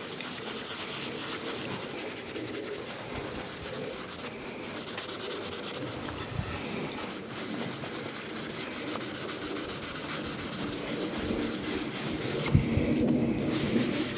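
A rag scrubbing back and forth over a steel axe head, wiping off dirt while the old patina is left on. A steady, scratchy rubbing of quick strokes that grows a little louder near the end.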